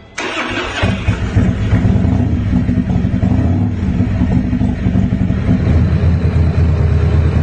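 Harley-Davidson FXD Dyna's V-twin engine starting: a brief loud burst right at the start, then the engine settles into a steady, low-pitched idle about a second in.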